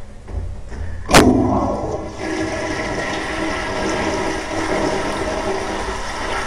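Tankless toilet with a flushometer valve flushing: a sharp burst about a second in as the valve opens, then a steady rush of water through the bowl.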